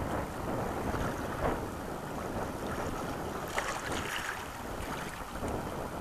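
Fast river water rushing and churning around a moving canoe in a riffle, with wind buffeting the microphone. A brief splash comes about three and a half seconds in.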